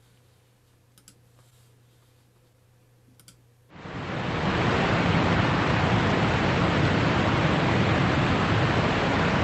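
A few faint clicks in near silence, then about four seconds in a steady rushing roar of a waterfall fades in and holds, played from a shared video.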